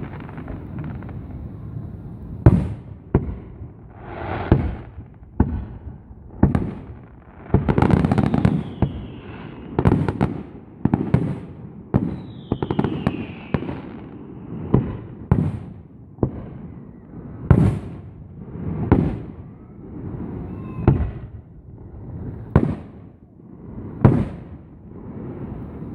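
Aerial fireworks bursting in rapid succession, a sharp bang every half second to second, some followed by crackling and short whistles.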